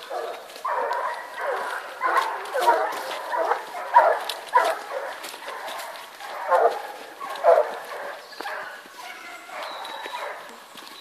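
A pack of hunting dogs giving tongue on wild boar: repeated barks and yelps from several dogs, overlapping in irregular bursts.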